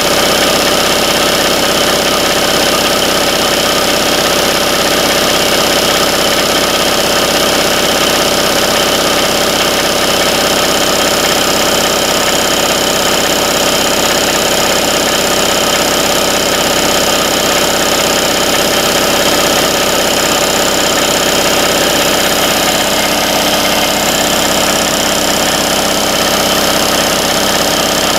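1993 Craftsman 30-gallon, 5 HP, 240 V oil-lubricated air compressor running steadily while pumping up its tank.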